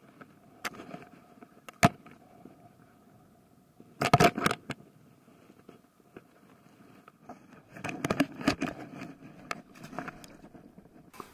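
Handling noise as a caught sea bass is unhooked by hand: sharp clicks, scrapes and rattles of the lure's metal hooks, loudest in a clattering burst about four seconds in. Near the end comes a longer run of clicks and splashing as the fish is lowered back into the water.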